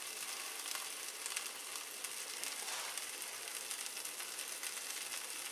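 Buttered sandwich frying in a nonstick pan: a steady sizzle with faint crackles.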